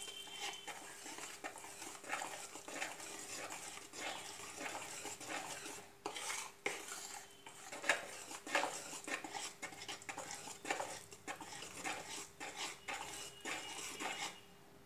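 Metal wire whisk stirring cake batter in a plastic bowl: a quick, irregular run of scraping and tapping strokes that stops just before the end. This is the final mix of the batter right after Eno fruit salt is added, while it foams.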